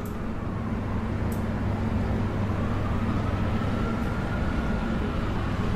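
A steady low rumble with a deep hum and a faint, slowly wavering higher tone, like road traffic noise.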